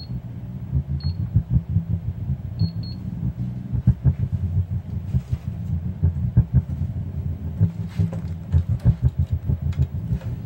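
Powered woofer speaker playing from a USB stick, putting out a loud, uneven low rumble with little clear sound above it: a garbled output that marks the unit as faulty. Short high beeps from its front-panel buttons sound several times in the first three seconds.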